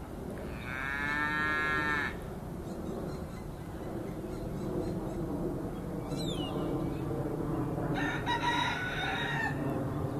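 A rooster crowing about half a second in and again near the end, with a steer mooing low in between. A small bird gives a short falling chirp about midway.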